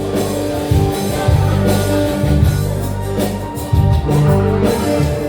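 Live band playing an instrumental passage between sung lines: bass, drums and guitar with a steady beat.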